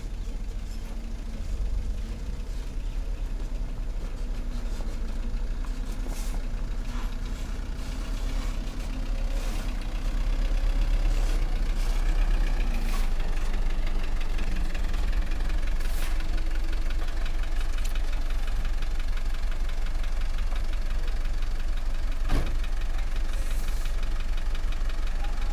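Diesel engine of a loaded light dump truck running as it drives in over a dirt track, getting louder about ten seconds in as it comes close. A single sharp knock near the end.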